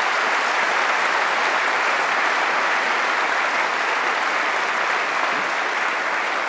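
A large audience applauding, a steady sustained clapping.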